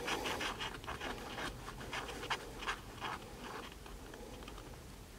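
A coin scratching the coating off a scratch-off lottery ticket in quick short strokes, about four a second, petering out near the end.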